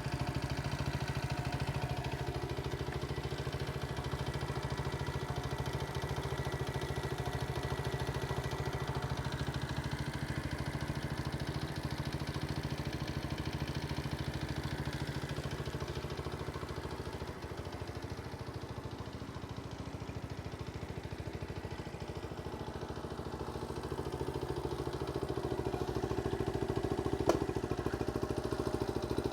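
1970 Honda CT70H's small single-cylinder four-stroke engine idling steadily, a little louder near the end, with one sharp click shortly before the end.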